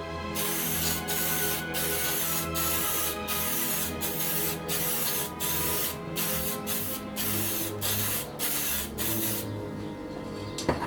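Aerosol spray-paint can hissing in a run of short bursts with brief breaks between them. The spraying stops about a second and a half before the end, and a sharp click follows.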